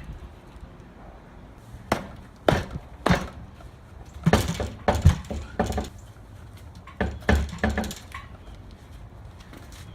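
Irregular knocks and clunks of things being handled: single knocks about two, two and a half and three seconds in, then two busier clusters about four to six and seven to eight seconds in.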